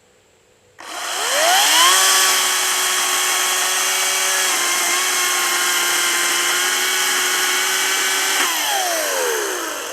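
Hart 40-volt brushless cordless chainsaw's electric motor spinning up with a rising whine about a second in, running steadily for about seven seconds, then winding down with a falling whine near the end.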